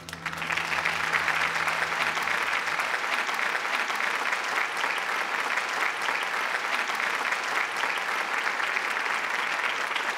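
Audience applauding, breaking out suddenly as the song ends and holding steady; the band's last low note rings on under the clapping for the first couple of seconds.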